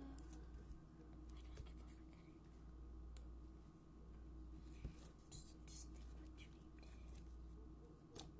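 Near silence: a low steady room hum with faint rustles and a few soft clicks from hands handling slime, the sharpest clicks about three seconds in, about five seconds in and near the end.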